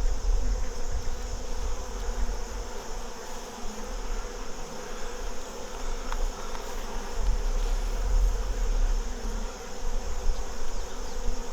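Honeybees buzzing steadily around an opened hive while its brood frames are inspected, with a low rumble at times.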